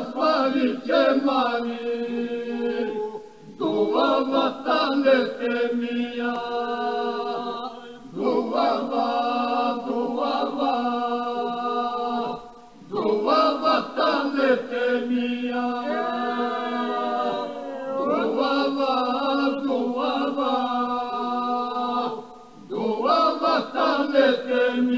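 Vocal music: a group of voices chanting in phrases of about four to five seconds with short breaks between, over a held low note.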